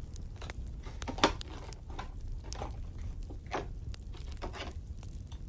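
Wood fire crackling, with irregular small crackles and pops over a steady low rumble and one sharp snap about a second in.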